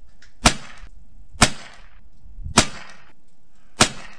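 Four shots from a Savage B22 Precision bolt-action .22 LR rifle firing standard-velocity SK Rifle Match ammunition, about a second apart, each a sharp crack with a short ringing tail.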